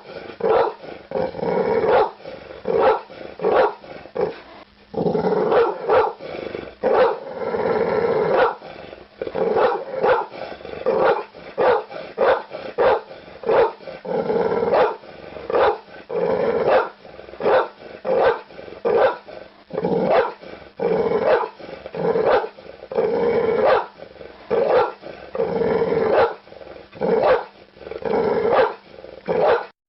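A dog barking over and over, roughly once a second, with a few longer, drawn-out calls a few seconds in.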